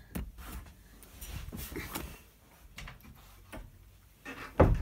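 Rustling and light knocks of things being handled and moved about, with one dull thump near the end.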